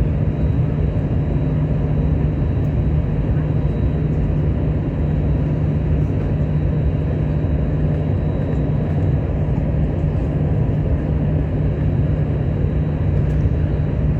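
Airbus A321 jet engines and airflow heard from inside the passenger cabin: a steady, even drone with a strong low hum that does not rise or fall.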